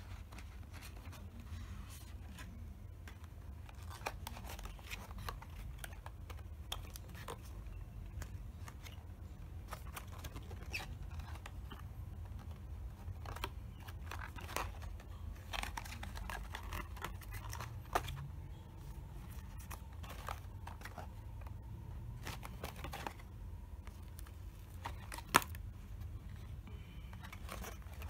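Cardboard box and paper insert being handled while a mask is unpacked: rustling and sliding with scattered soft taps and clicks, and one sharper click near the end, over a low steady hum.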